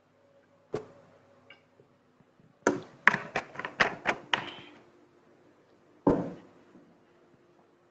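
A series of sharp taps or clicks: one about a second in, a quick run of about eight more around the middle, and a single loud one near the end.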